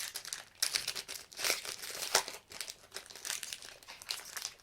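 Crinkling of a trading-card pack wrapper as cards are handled: a rapid, irregular run of crackles, with a sharper snap about two seconds in.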